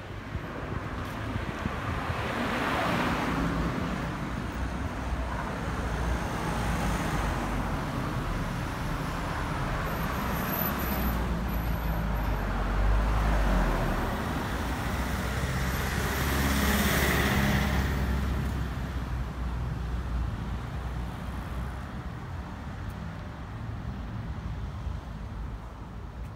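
Road traffic: cars driving past along a street, the noise swelling and fading as each goes by, loudest about three seconds in and again around seventeen seconds.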